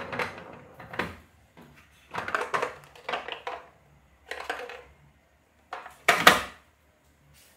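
Hollow plastic toy car handled on a tabletop: clusters of short plastic knocks, clatters and wheel rattles, with the loudest clack about six seconds in as the car is set down.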